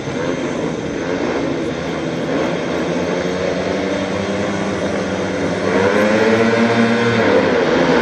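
Four speedway bikes' 500 cc single-cylinder methanol engines revving together at the starting gate. They grow louder, with rising, wavering pitch, about six seconds in as the bikes launch from the start.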